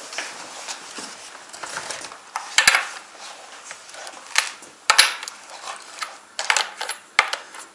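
A combination bar wrench clinking against a chainsaw's bar nuts and side cover as the nuts are loosened: irregular sharp metallic clicks and knocks, several in all, over handling noise.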